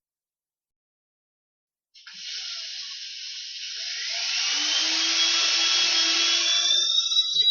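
A sound effect that starts about two seconds in: a hissing rush that swells louder, with a whine rising slowly in pitch through it and a low steady hum beneath.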